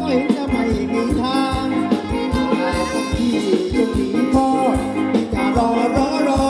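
Thai ramwong dance music from a live band: a singer's wavering voice over a steady drum beat.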